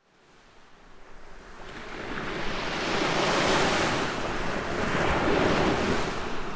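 Ocean waves washing in, fading up from silence and then swelling and easing in slow surges.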